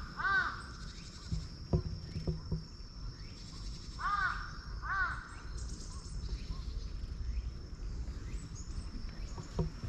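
A crow cawing: one caw at the start, then two more about four and five seconds in, each short and clear. Under it runs a steady, high-pitched insect drone.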